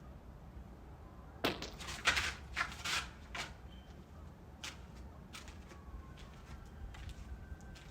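Slow, uneven footsteps over a low, steady rumble. A cluster of louder steps comes about one and a half to three and a half seconds in, and fainter, sparser steps follow.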